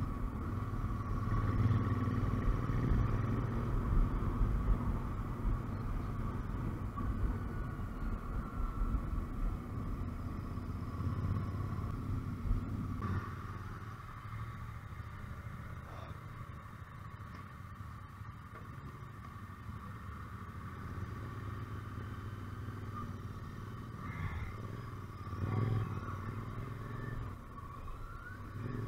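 Motorcycle engine and road noise heard from the rider's own bike while riding, steady; about 13 seconds in it drops to a quieter, low-speed engine sound.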